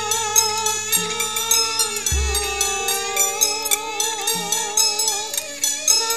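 Javanese gamelan music playing, with a wavering high melody line over steady ringing notes and regular strokes, and one deep low stroke about two seconds in.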